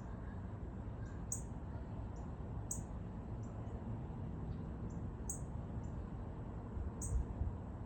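A small bird calling outdoors with sharp, high chip notes, repeated every second or two, over a steady low rumble.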